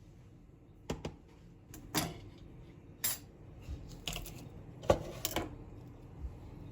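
Kitchen dishes and utensils clinking and knocking: about eight separate sharp clinks, some ringing briefly, the loudest about five seconds in.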